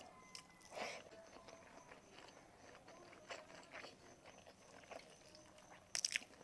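Close-miked eating sounds: quiet chewing and mouth noises with scattered small clicks, and a brief, sharper clatter near the end.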